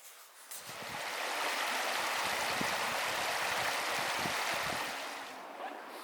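Rushing water of a stream, a steady even rush that swells up about a second in and falls away about five seconds in.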